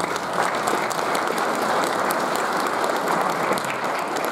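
Audience applauding, a dense patter of hand claps at a steady level.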